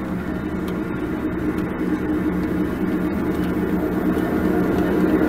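HO scale model freight train rolling past behind its diesel locomotive: a steady drone from the locomotive and the cars running on the track.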